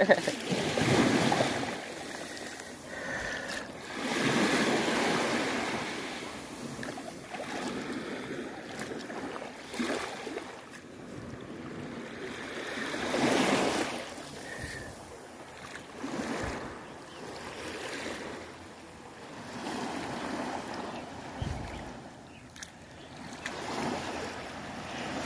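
Small waves washing up the sand and drawing back at the water's edge, the wash swelling and fading every few seconds.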